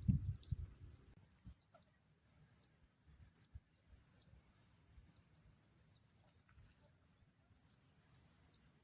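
A small bird calling: a thin, high note sliding downward, repeated about once every second, roughly nine times. A few low dull thumps come first, in the opening second or so.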